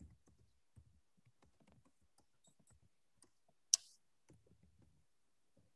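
Near silence with one short, sharp click a little past the middle and a few very faint ticks.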